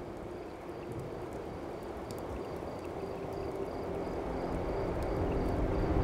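Soundtrack ambience: a low, noisy bed with a faint, evenly pulsing high chirp. Sustained music tones fade in about halfway through and swell, getting steadily louder.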